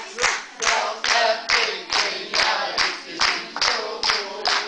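Children singing together while clapping along in a steady rhythm, a little over two claps a second.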